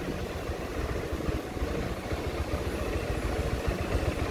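A vehicle's engine running at a steady pace with a low rumble, driving over a broken, landslide-damaged mountain road.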